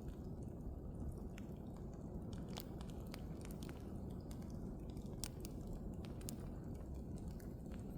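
Wood bonfire burning: irregular sharp crackles and pops over a steady low rush of the flames.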